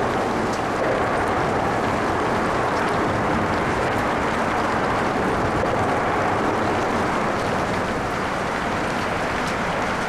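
Steady rush of light freeway traffic mixed with light rain, with a few faint raindrop ticks scattered through it.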